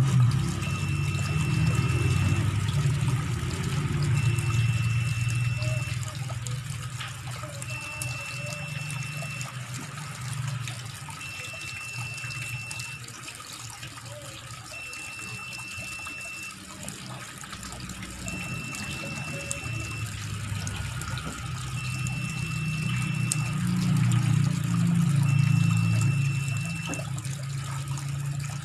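Tap water running from a pipe into a large plastic tub, splashing steadily into the water already in it, swelling and easing in loudness.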